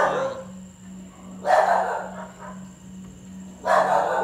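A small dog barking three times, about two seconds apart.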